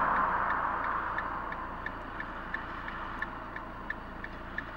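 Short, high ticks repeating evenly about three times a second, over a rush of noise that fades away over the first couple of seconds, like a vehicle moving off.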